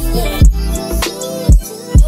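Background music with a beat: a melodic line over deep bass hits, three of them in these two seconds.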